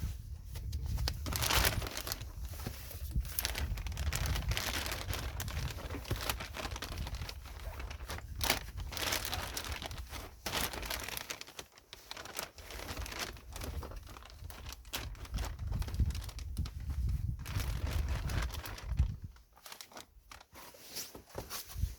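Handling noise: irregular crinkling and rustling over a low steady rumble, dropping away briefly a few times.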